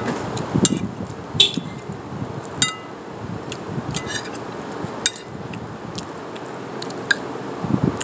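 Metal spoon clinking against a ceramic plate while scooping food, about six sharp, ringing clinks a second or so apart.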